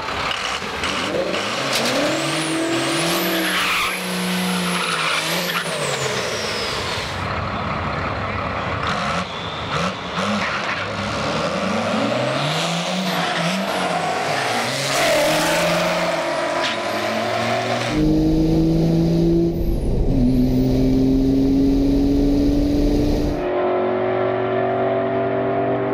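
Drag-racing pickup's 5.9 Cummins 12-valve turbo diesel, nitrous-fed, revving and accelerating hard on the strip, its note rising and falling several times, with another race car's engine and some tire noise mixed in. The sound changes abruptly a few times between shots.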